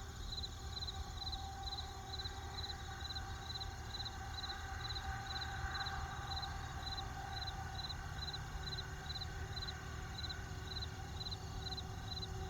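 Crickets chirping in a steady rhythm, about two chirps a second, over an even low rumble of a campfire.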